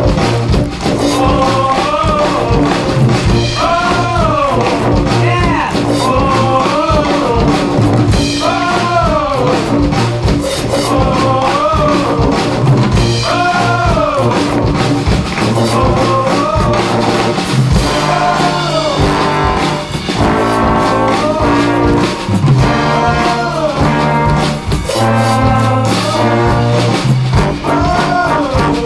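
Brass band music: trumpets and saxophones playing a rising-and-falling melody over a drum kit.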